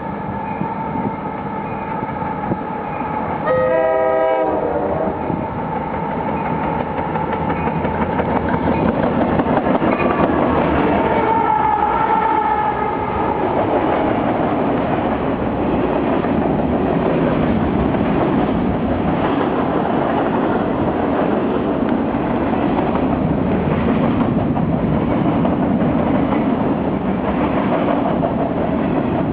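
Diesel freight train led by an EMD SD40-2 locomotive sounding its horn as it approaches, with a short loud blast about four seconds in and another stretch of horn around ten to thirteen seconds in. Then the locomotives and freight cars roll past with a steady, dense rumble of engines and wheels on the rails.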